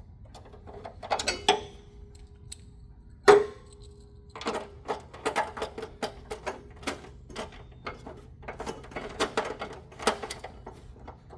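Small irregular metal clicks and taps as screws are threaded by hand on a long driver extension into the handle bracket under an infant warmer's bed. Two sharper metallic knocks ring briefly, the louder one about three seconds in.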